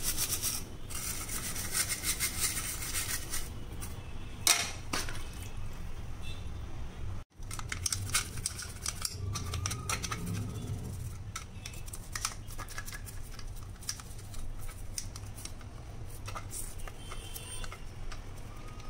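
Toothbrush and scouring pad scrubbing a kitchen chimney's wet filter parts, a clear plastic panel over a stainless-steel baffle filter: quick, irregular scratchy strokes. The sound breaks off for an instant about seven seconds in.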